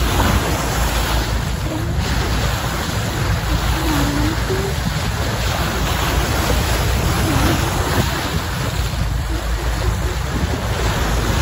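Water rushing and splashing along the hull of a moving boat, with wind buffeting the microphone in a steady rumble. A few faint, short wavering tones come and go over it.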